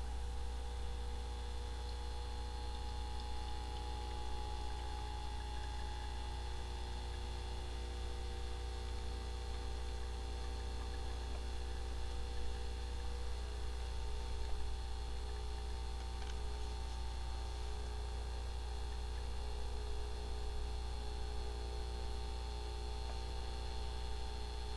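DeLonghi EC155 espresso machine's vibratory pump running steadily with a mains hum while the shot brews. It cuts off suddenly at the end as the pump is switched off.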